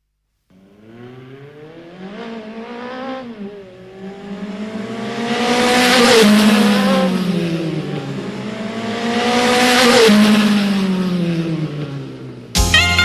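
Electronic keyboard sound effect imitating a race car engine: a pitched engine tone that rises and falls, swelling twice to loud passing peaks. A loud burst of music cuts in near the end.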